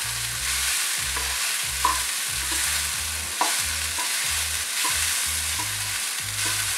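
A spatula stirring and scraping crumbly moong dal upma with grated coconut around a frying pan over a steady frying sizzle, with a few sharper knocks of the spatula against the pan.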